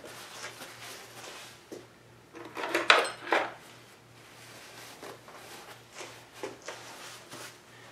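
Metal tools and parts clinking and clattering as a hand rummages in a metal tool tray, in scattered knocks with a louder run of clatters about three seconds in.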